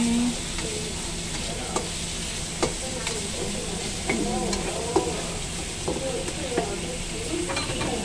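Sliced carrots and garlic sizzling steadily in oil in a non-stick wok while a slotted spatula stir-fries them, with sharp scattered taps and scrapes of the spatula against the pan.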